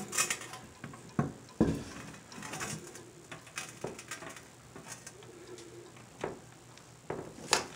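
Scattered light knocks and scrapes as a porcelain toilet is tilted and shifted to seat it onto its flange bolts, the loudest knock near the end.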